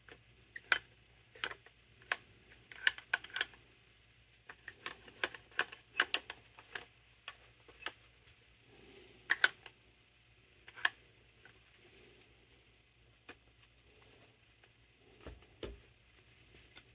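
Irregular clicks and clinks of small metal carburetor parts and hand tools being handled, with a few sharper taps standing out among lighter ticks.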